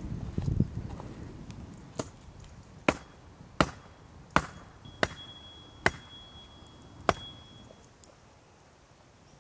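A forked wooden stake being hammered into the ground: seven sharp knocks, roughly one a second.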